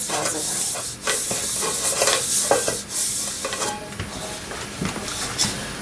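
Oil being rubbed over the inside of a multicooker's cooking bowl: a rustling, rubbing noise in repeated strokes, which gets quieter about four seconds in.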